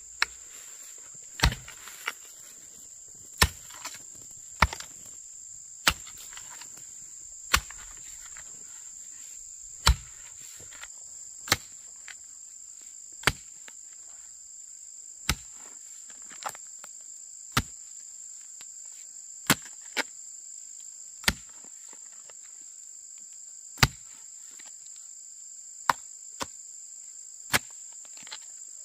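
Sharp single blows of a hand tool striking over and over, about one every one to two seconds at an uneven pace, over a steady high-pitched drone of insects.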